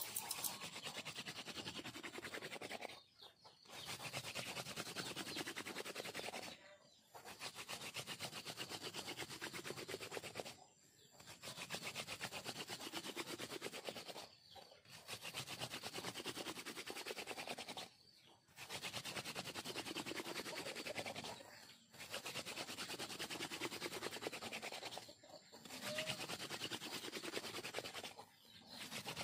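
Wooden hand-drill spindle spun back and forth between the palms, grinding into a wooden board with no notch: a steady dry rubbing of wood on wood for friction fire. It comes in runs of about three seconds, broken by brief pauses roughly every three and a half seconds as the hands go back to the top of the spindle.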